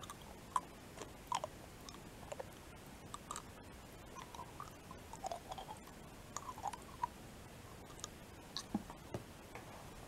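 Close-miked mouth sounds of eating a chocolate umbrella: soft, irregular wet smacks and clicks of lips and tongue while sucking and chewing the chocolate off its plastic stick.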